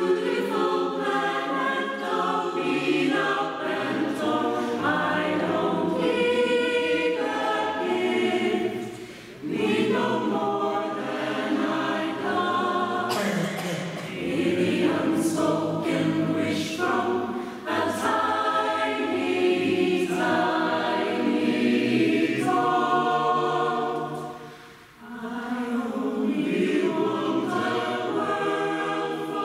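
Mixed choir of men's and women's voices singing a Christmas song a cappella in harmony, in phrases broken by short breaths about 9 and 25 seconds in.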